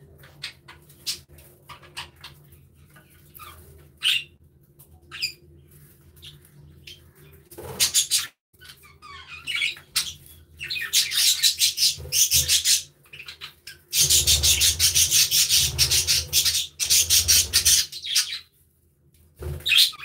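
Budgerigars chirping in scattered short calls, then loud, rapid chattering from about halfway through.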